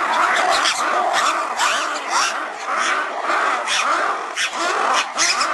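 An animal calling over and over, about two short calls a second.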